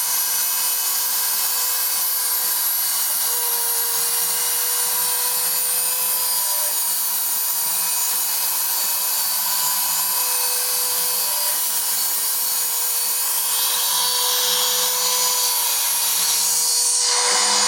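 Small CNC machine's spindle running steadily while engraving a printed circuit board: a steady tone under a high hiss, which grows louder near the end.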